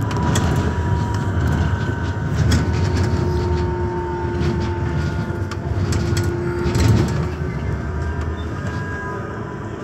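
Class 399 Stadler Citylink tram-train running along the track, heard from the driver's cab: a steady wheel-on-rail rumble with a faint whine from the drive and scattered clicks as the wheels pass over rail joints. It grows a little quieter over the last few seconds.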